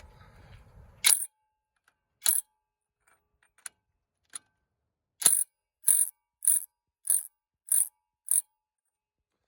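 Sharp metallic clicks from a socket wrench working on a truck's 36 mm front axle nut: a few scattered clicks, then a steady run of six about every 0.6 seconds.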